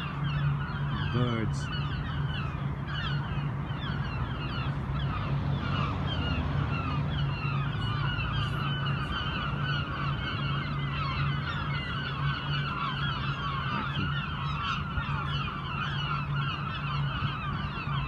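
A big flock of gulls calling at once overhead, a dense and unbroken din of overlapping squawks: a seagull squabble, which the filmer puts down to crows hassling the gulls. A steady low hum runs underneath.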